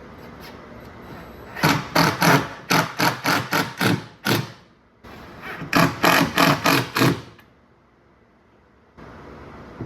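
Two runs of rapid, evenly spaced knocks, about four a second, with a short pause between them.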